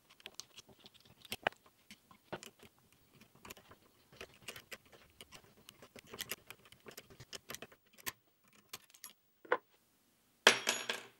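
Steel snap ring and split pins being worked up the splines of a Land Rover Series 3 gearbox mainshaft with snap ring pliers: a run of light metallic clicks and scrapes. Near the end comes one louder metallic clatter with a brief ring.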